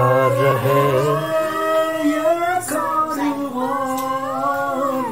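A woman singing a slow melody, holding long notes that slide up and down.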